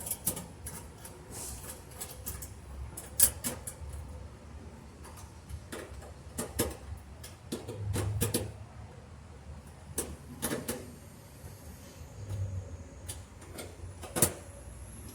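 Irregular clicks and light knocks of screws being threaded in by hand and dryer parts being handled, with the sharpest knocks about three seconds in and near the end.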